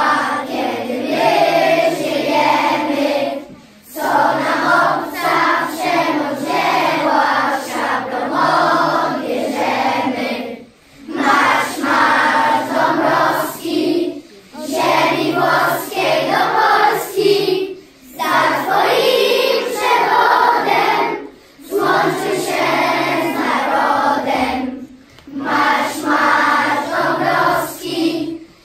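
A large choir of schoolchildren singing together in phrases of a few seconds, with a short breath-pause between each phrase.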